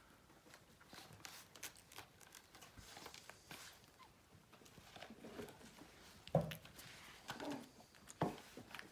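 Micro mini sheepadoodle puppies playing and mouthing toys on a blanket: scattered scratching, rustling and small clicks, with a few brief puppy vocal sounds in the second half and a sharp thump about two-thirds of the way through.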